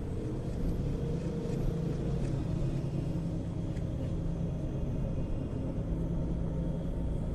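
A steady low rumble with a few faint scattered ticks.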